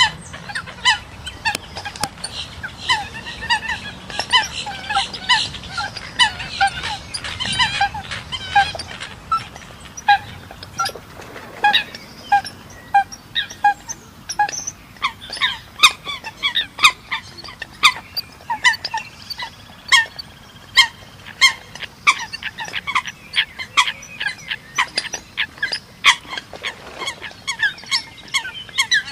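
Eurasian coots calling: a rapid, overlapping run of short, sharp call notes, two or three a second.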